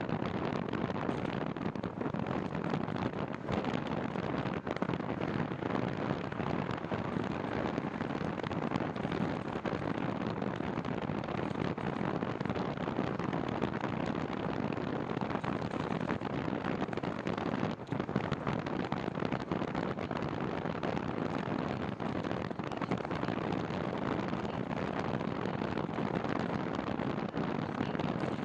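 Steady wind rushing and buffeting over the microphone of a rider on a moving bicycle.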